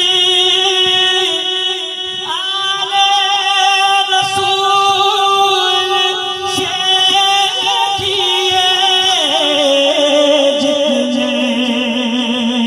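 A man singing Urdu devotional verse into a microphone, drawing out long wavering notes with slow glides between them. The notes slide down to a lower pitch about nine seconds in.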